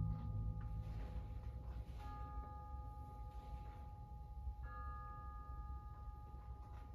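Quiet passage from a percussion ensemble: a low drum rumble dies away at the start, then metal percussion rings on in steady tones, struck again about two seconds in and once more past the halfway point, with faint light taps scattered through.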